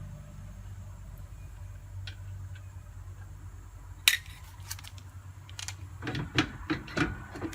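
Metal clicks and clinks of hand tools and loose parts on a trailer wheel hub being taken apart: one sharp click about four seconds in, a few lighter ticks, then a quick run of clinks near the end.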